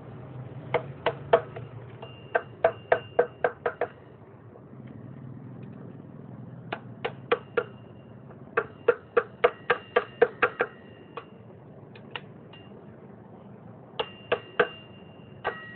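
Hammer tapping on metal in bursts of quick, ringing strokes, bending the sprocket bolts' lock-plate tabs over flat.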